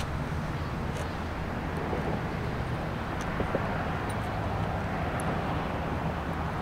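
A motor running steadily with a low drone, under a steady hiss, with a few faint ticks scattered through.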